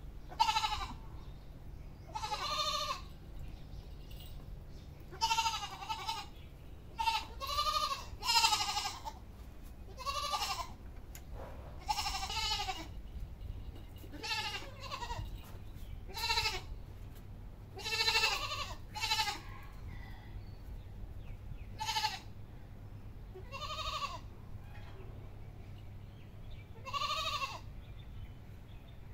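Goat bleating over and over: a string of wavering, quavering calls, one every second or two, each lasting about half a second to a second.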